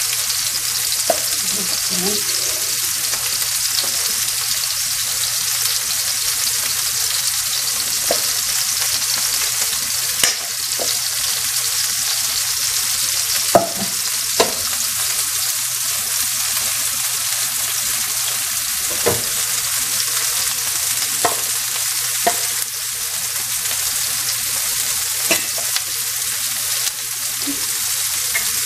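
Shrimp sizzling in hot oil in a frying pan, a steady high hiss, with scattered sharp clicks of a metal spoon against the pan as the shrimp are moved about.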